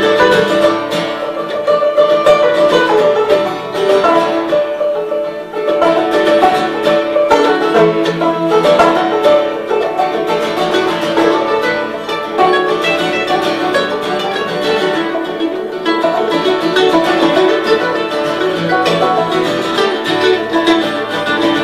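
A live band playing an instrumental break between sung verses, string instruments picking out the tune with no singing.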